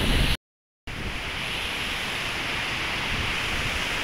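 Steady rushing hiss of a waterfall, falling water splashing down a rock face. Shortly after the start the sound drops out completely for about half a second, then the rushing resumes.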